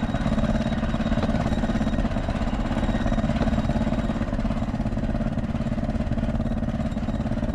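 An engine running steadily at a constant pitch, a low even hum.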